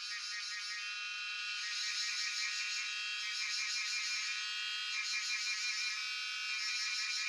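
Cicadas chorusing: a steady, shrill, pulsing buzz of many overlapping tones, swelling louder over the first couple of seconds.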